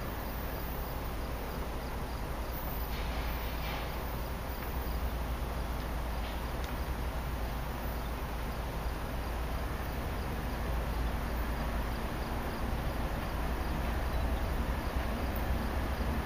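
Insects chirping in a steady, evenly spaced pulse over a low outdoor rumble that slowly grows louder toward the end.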